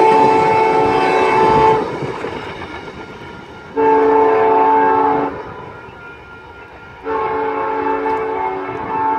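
VIA Rail passenger train's multi-chime air horn sounding three blasts. A long one ends about two seconds in, a shorter one comes around four seconds, and another long one starts about seven seconds in. The train rumbles between the blasts.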